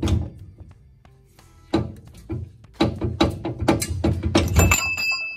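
Heavy metal clunks and knocks as the Dana 44 differential carrier is rocked loose and pulled out of the axle housing, coming fast and irregular in the middle and ending in a high ringing metal tone.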